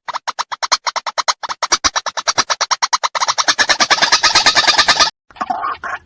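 White-breasted waterhen calling: a fast run of harsh repeated notes, about ten a second, getting louder toward the end and stopping abruptly about five seconds in, followed by a few looser, irregular croaking notes.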